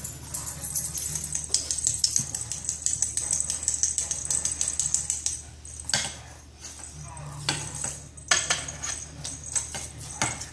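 Pet wand toy with a small bell and tinsel streamers being flicked about on a hardwood floor: a steady run of quick clicks, taps and rattles with a high bell-like jingle over them.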